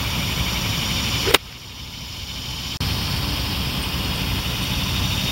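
A golf iron striking the ball once, a single sharp crack about a second and a half in, over a steady low rumble of background noise that briefly drops away just after the strike.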